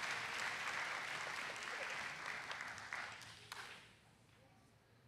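An audience applauding; the clapping dies away about three and a half seconds in.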